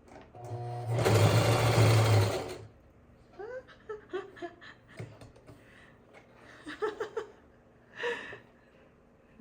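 Singer Heavy Duty 6360 sewing machine running for about two seconds as it stitches through practice cloth, starting about half a second in and stopping suddenly. It is followed by a few quieter clicks.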